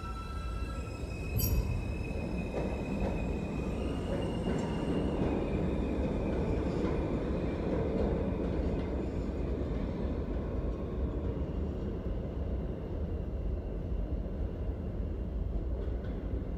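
New York City subway train pulling out of the station and running off down the tunnel: a steady rumble of wheels on rail with a high whine over it, and a sharp clack about a second and a half in. The high whine dies away in the second half while the low rumble goes on.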